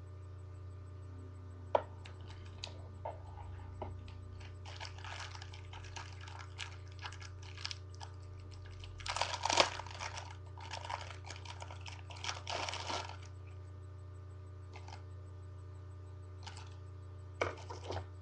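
Small clicks, taps and scratchy scraping from handling and working on a second-generation iPod Touch and its parts during a screen repair, loudest in bursts about halfway through, over a steady low electrical hum.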